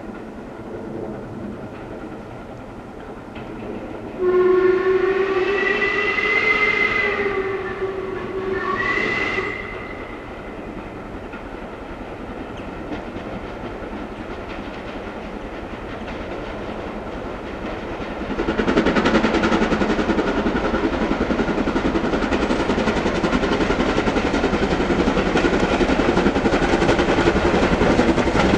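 LMS Stanier 8F 2-8-0 steam locomotive sounding its whistle, one long blast of about three seconds and then a short one, as it approaches. About two-thirds of the way through, the locomotive and its coaches pass close by, loud and steady.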